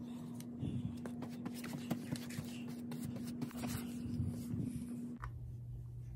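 Paintbrush strokes: stiff bristles scratching and dabbing across a wooden body panel and tapping in a paint can, in quick irregular strokes. A steady low hum runs underneath and drops to a lower pitch about five seconds in.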